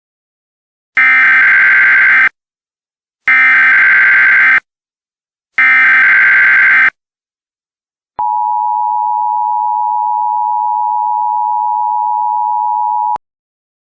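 Emergency Alert System header: three short bursts of SAME digital data tones, about a second apart, followed by the EAS two-tone attention signal, held steady for about five seconds and then cut off.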